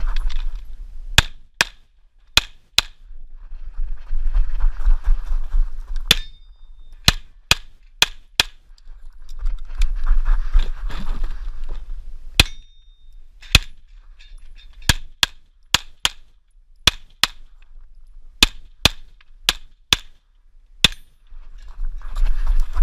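Tanfoglio Stock II 9×19 pistol firing strings of shots, about two dozen in all, mostly in fast pairs about half a second apart, with a brief metallic ring after a couple of them. Between strings come stretches of shuffling and footsteps on gravel as the shooter moves between firing positions.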